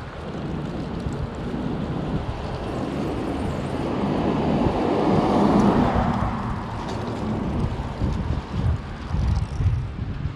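Wind buffeting the camera microphone on a moving bicycle, a low fluttering rumble, with a louder rush that swells to a peak about halfway through and then fades.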